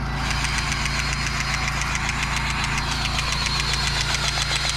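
Farm harvest machinery running: a steady engine hum with a rapid, even clicking over it that starts and stops abruptly.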